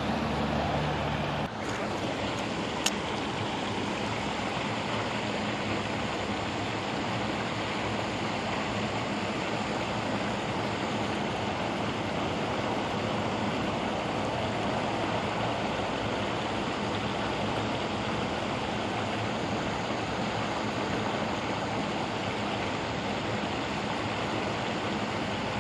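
Water pouring over a low dam spillway into the pool below: a steady, even rushing. A single small tick sounds about three seconds in.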